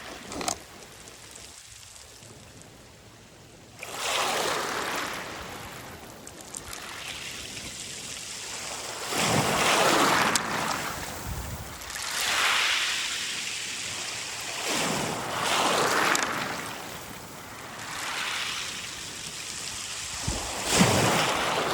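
Sea waves washing in and draining back over a beach of rounded stones, in about six surges that each swell and fall away, the first about four seconds in. There is a short sharp knock near the end.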